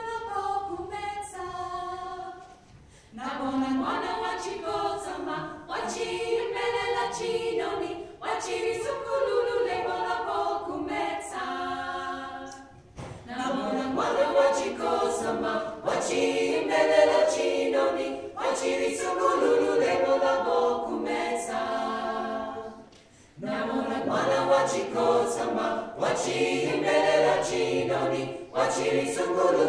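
Mixed a cappella choir of women and men singing in parts, in long phrases broken by brief pauses about every ten seconds.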